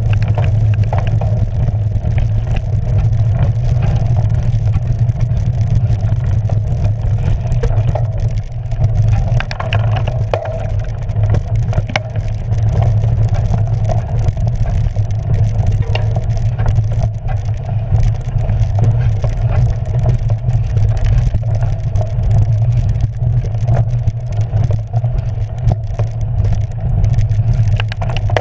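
Cyclocross bike riding over a rough dirt and leaf-covered trail, heard through a handlebar-mounted camera: a steady, loud low rumble of the ride with frequent small rattles and clicks from the bike and ground.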